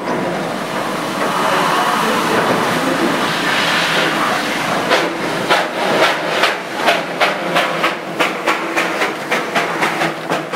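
Darjeeling Himalayan Railway B-class saddle-tank steam locomotive getting under way: a steady hiss of steam, then from about halfway a regular beat of exhaust chuffs, about three a second.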